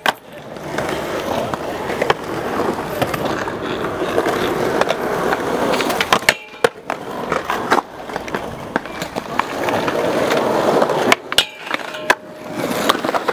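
Skateboard wheels rolling on concrete, and the board scraping on a round metal handrail, with sharp clacks of pops and landings near the start, around the middle and near the end.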